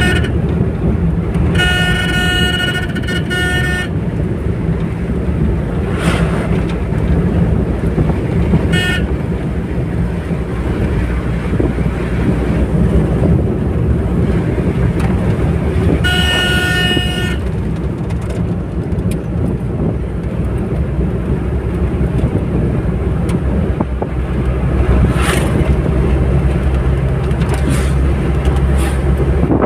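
Steady engine and road noise from inside a moving vehicle on a highway. A horn sounds a long blast of about two seconds a couple of seconds in, a short toot about nine seconds in, and another blast of a little over a second about sixteen seconds in.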